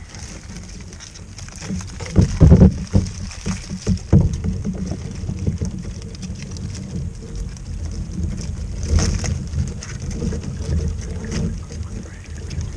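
Wind rumbling on the microphone, with knocks and rattles from a wire crab trap full of blue crabs being handled over a kayak, loudest about two seconds in, again about four seconds in and once near nine seconds.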